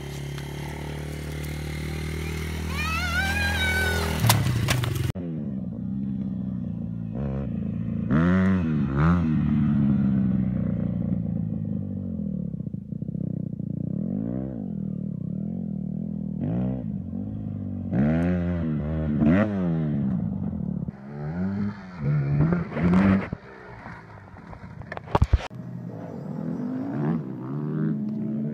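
Dirt bike engines. A small kids' dirt bike runs steadily at first. After a sudden cut a full-size dirt bike revs up and down in repeated swells, about one every second or two. Near the end come a few sharp knocks and clatter.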